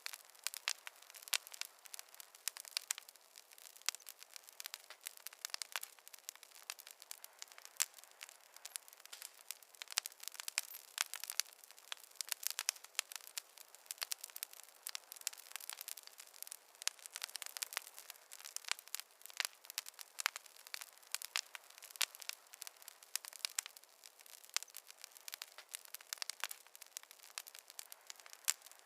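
Fire crackling steadily, with many small irregular pops and snaps over a faint hiss.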